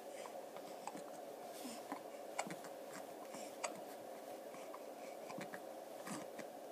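Month-old twin babies hiccuping: several short, soft hiccups at uneven intervals over a steady background hum.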